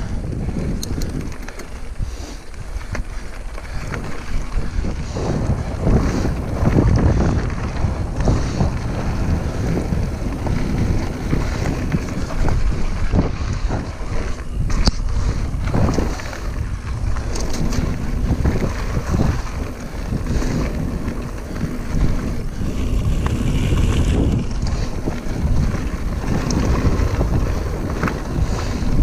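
Wind buffeting the action camera's microphone over the rumble of mountain bike tyres rolling down a rocky gravel trail, with scattered knocks and rattles from the bike over the bumps.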